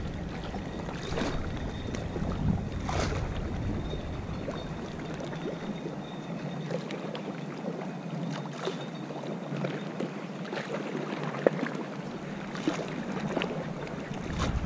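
Wind buffeting the microphone over lapping water, with scattered light clicks.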